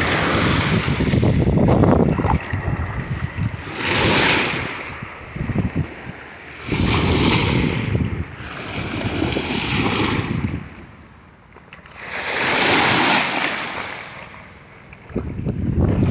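Shallow surf washing in over sand and broken shell at the water's edge, swelling and fading every two to three seconds, with wind rumbling on the microphone.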